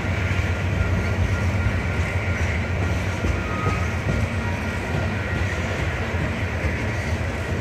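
Freight train of tank cars rolling past, a steady rumble of steel wheels on the rails.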